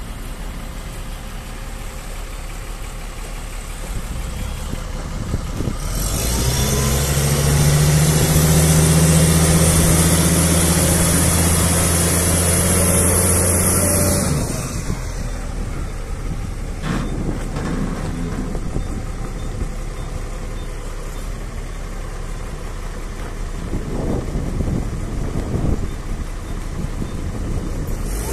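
Diesel engine of a 60-ton rough-terrain crane running as the crane drives slowly past. About six seconds in it gets much louder, with a deep steady drone and a hiss, for about eight seconds, then drops back suddenly to a quieter running note.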